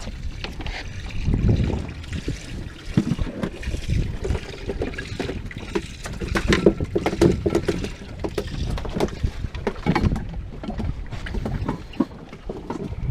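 Wind buffeting the microphone over water sloshing against a small boat's hull, with scattered knocks and clatter on board.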